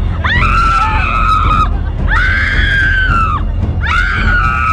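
A woman screaming in three long, high cries, each held for more than a second with short breaks between them.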